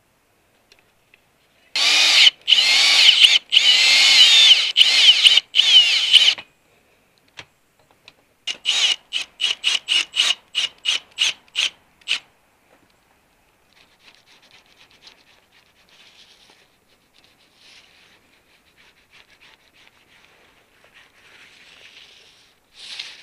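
Cordless drill working at an RV's aluminium awning rail, its motor running with a high whine in several trigger pulls with brief stops, then in about a dozen short quick bursts, roughly three a second. Faint rubbing follows.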